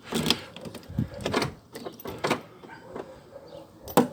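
Door lock of a 1998 Mazda 626 being worked while its central locking is tested: several separate short clicks and knocks, the last near the end. The central locking does not engage.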